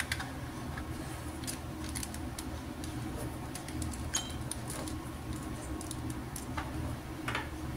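Small scattered clicks and rattles from handling a Sony camcorder and its micro-HDMI cable plug, over a low steady hum.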